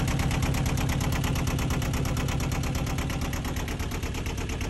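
Small inboard sailboat diesel engine running steadily at idle with a rapid, even clatter, heard close up over its open engine compartment. It is running again after its fuel filter, suspected of clogging, was replaced.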